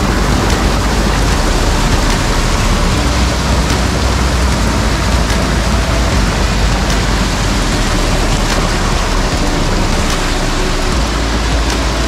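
Small waterfall of clear water spilling over a stone and concrete ledge into a pool. Heard close up as a loud, steady rushing splash.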